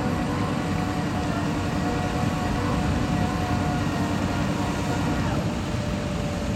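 A steady, unbroken low rumble with a faint hum, like an engine running.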